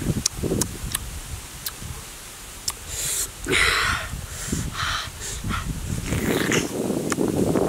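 A person eating a white-fleshed dragon fruit close to the microphone: chewing with sharp lip-smacking clicks, and several loud hissing mouth and breath noises about three to five seconds in.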